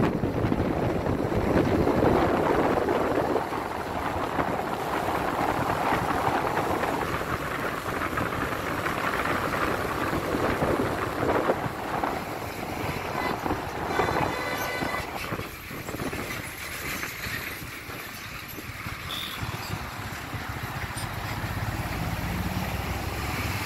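Steady road noise from a moving vehicle in traffic: engine and tyre noise. A short pitched sound stands out about halfway through.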